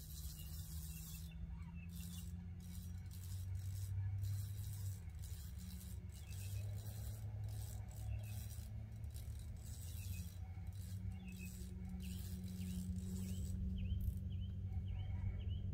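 Spinning reel clicking and rattling irregularly as a hooked fish is fought on a bent rod, over a steady low wind rumble on the microphone. A few faint high chirps come near the end.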